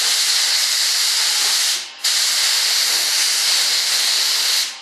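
Gravity-feed spray gun hissing steadily as it sprays Partall mold release, the hiss cutting out briefly about two seconds in and again near the end as the trigger is let off and pulled again.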